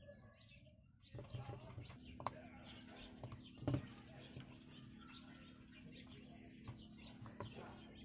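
Fish being set down by hand in an aluminium wok, giving a few soft knocks and taps, the sharpest a little under four seconds in, over birds chirping in the background.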